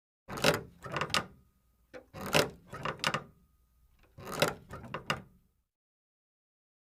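Three short bursts of scraping, rubbing noise, each lasting about a second and about two seconds apart.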